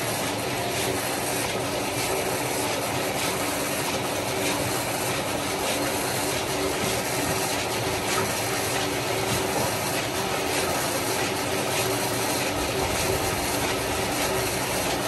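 Steady rushing noise of a lot of falling water.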